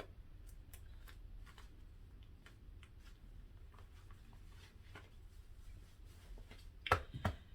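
Faint rustling and handling of clothing, with scattered small clicks over a low room hum; a few louder sharp sounds close together near the end.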